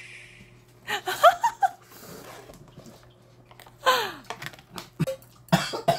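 A person slurping instant ramen noodles in quick pulls, with squeaky whistling slurps about a second in and again near four seconds, then wet chewing and lip smacks near the end.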